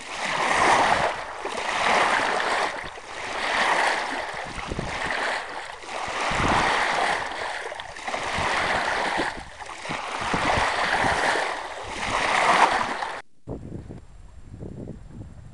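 Water rushing and splashing along the hull of a Mercator Offshore 30 sailboat under sail, swelling and easing about every two seconds. It cuts off abruptly near the end, leaving a much quieter wash of water and wind.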